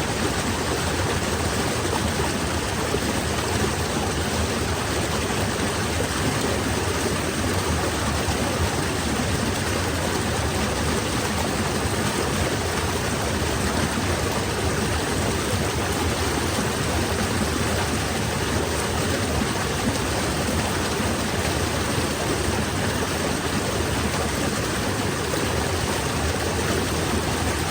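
Falling water rushing steadily, an even unbroken splashing rush.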